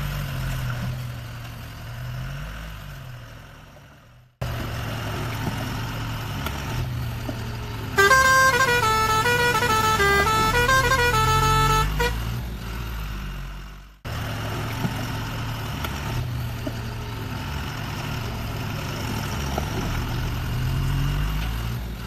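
A truck engine running with slowly rising and falling revs, broken off twice by abrupt cuts. In the middle, for about four seconds, a loud horn plays a short tune of notes stepping up and down.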